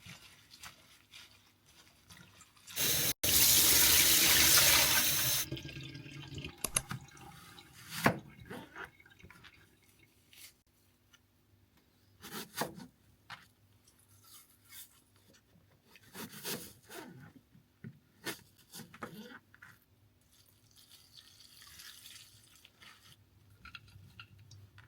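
Water tap running for a few seconds, then turned off, followed by scattered light knocks and clicks.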